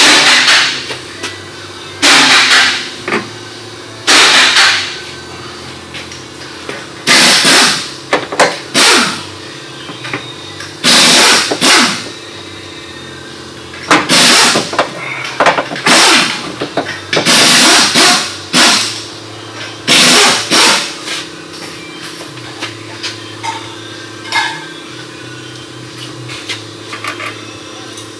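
Pneumatic impact wrench fired in about a dozen short bursts, running the 17 mm shock-mount bolts in and out, over a steady shop hum. The bursts stop about two-thirds of the way through, leaving the hum and a few light clicks.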